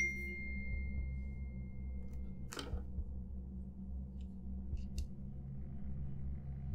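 Smartphone notification chime: a single sharp ding that rings on and fades over about two and a half seconds, over a steady low hum. A short rustle follows, then a couple of faint clicks.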